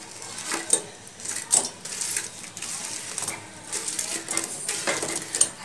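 A metal spoon clinking and scraping against a plate as fried urad dal fritters are pushed off it and drop into sugar syrup in a metal pan. The clinks come irregularly, several a second at times.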